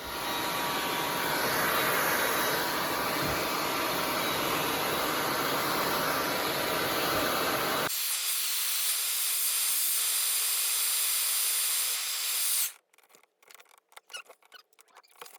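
Hair dryer blowing with a loud steady rush of air. About eight seconds in the low part of the sound drops away, leaving a thinner high hiss that cuts off suddenly a few seconds later.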